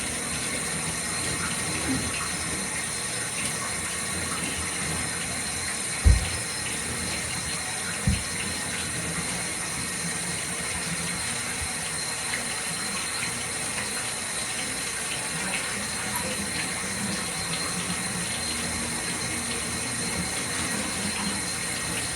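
Water running steadily from a tap into a bathtub while a dog is being washed. Two dull thumps about six and eight seconds in.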